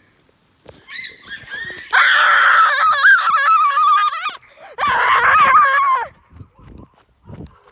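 A boy screeching loudly in a high, wavering voice, two long bursts with a short break between them, after a weaker shorter one.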